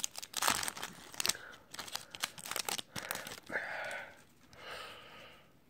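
Foil wrapper of a 2016-17 Upper Deck Series 1 hockey card pack crinkling and tearing as it is opened, with a quick run of sharp crackles in the first second and a half, then softer rustling.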